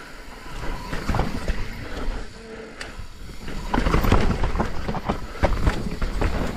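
Mountain bike rattling and knocking as it is ridden down a rough technical trail: a dense, irregular clatter of knocks and clicks over a low rumble, getting busier and louder about four seconds in.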